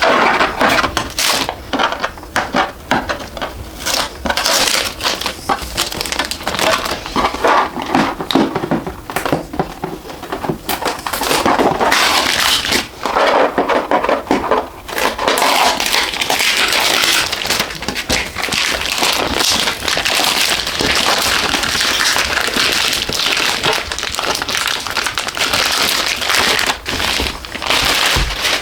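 Packing material being pulled and handled: continuous crinkling and rustling with many sharp clicks and crackles.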